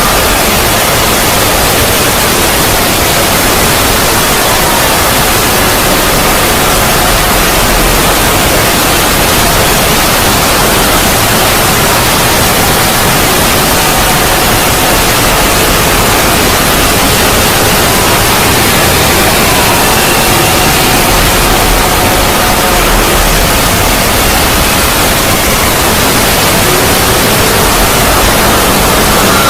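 A loud, steady static-like hiss spread evenly from low to high, with faint wavering tones drifting in and out underneath: a long 'void' ambience sound effect.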